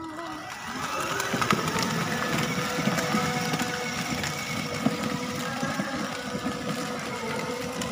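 Electric drive motors and plastic gearboxes of a children's battery-powered ride-on car whining steadily as it drives along, with its plastic wheels rumbling over brick paving. The sound gets louder about a second in as the car pulls away.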